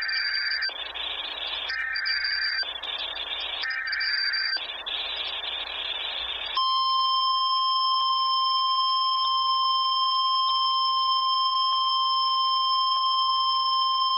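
Emergency Alert System signal on NOAA Weather Radio: about six and a half seconds of raspy, buzzing digital header bursts, then the steady 1050 Hz weather-radio alert tone, which signals that an emergency alert message follows.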